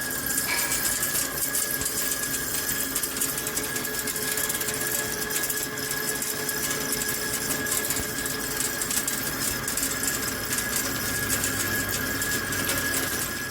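Heavy CNC lathe turning a forged steel shaft with a carbide insert: a steady machining noise with a thin high whine over it.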